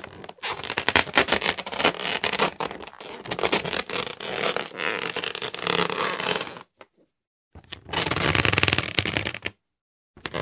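Inflated rubber balloon being rubbed, a long dense run of rubbing for about six and a half seconds. It stops for about a second, then a second rub of about two seconds follows.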